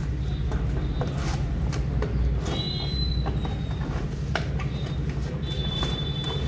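Cardboard packaging being handled: a white inner box is slid and pulled out of a cordless drill's outer carton and its flaps are opened, with scattered scrapes and knocks. A steady low hum runs underneath.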